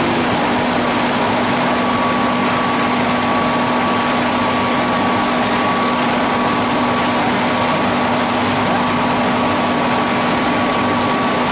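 8 ft spindle veneer peeling lathe running steadily: a constant hum and a thin high whine over a dense rushing noise.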